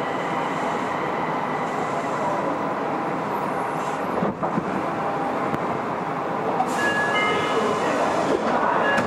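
Nagoya Municipal Subway 2000 series train running, a steady rail and tunnel rumble. About seven seconds in, the IGBT inverter's stepped whine tones come in over it.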